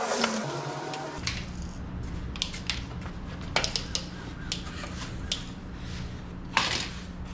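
Scattered clicks and light metallic knocks of hand tools being handled during car work, a few strikes every second or so at uneven intervals, over a steady low hum that starts about a second in.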